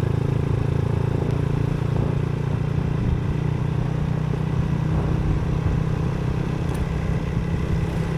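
Motorcycle engine running steadily at an even cruising speed while riding along a road.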